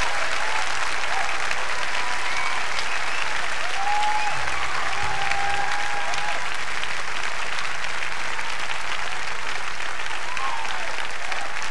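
Concert audience applauding steadily, with scattered cheers rising over the clapping.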